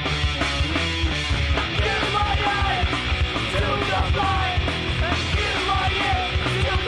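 Hardcore punk band playing: distorted electric guitar, bass and drums, with shouted vocals over them from about a second and a half in.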